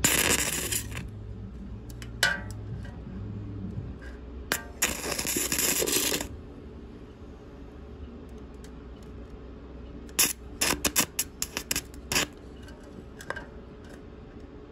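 Carbon arc from a battery's carbon rod, held in a stick-welding electrode holder, striking on thin aluminium beer cans. It hisses in two bursts of a second or so, then sputters in a quick string of sharp crackles and pops.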